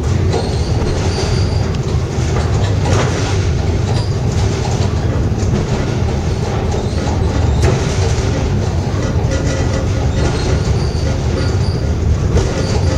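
Pic du Jer funicular car running along its rails: a steady, loud rumble of wheels on track, with occasional clicks and a few brief high wheel squeals.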